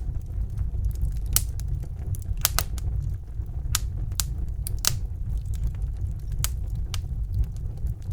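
Wood fire burning in a fireplace: a steady low rumble of the flames with sharp, irregular crackles and pops of the burning logs.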